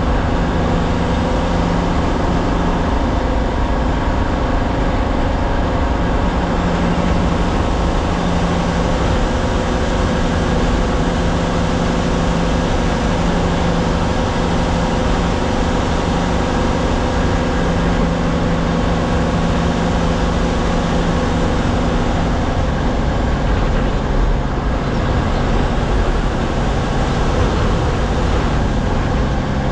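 Diesel engine of an MSRTC state-transport bus running under way, heard from inside the driver's cabin: a steady drone over heavy road and tyre rumble. The engine's hum thins out a little about two-thirds of the way through.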